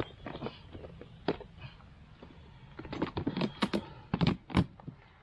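Irregular knocks and clicks close to the microphone, as gear is handled, a few at first and a louder cluster in the second half.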